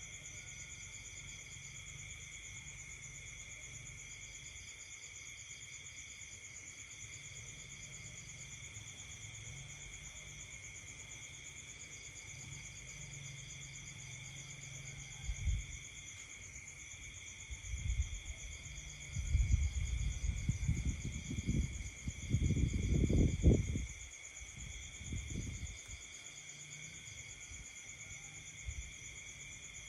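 Night chorus of insects and frogs: several steady high trills, with a pulsed call that comes and goes in bouts. About halfway through, a run of low rumbles and thumps starts up and dies away near the end.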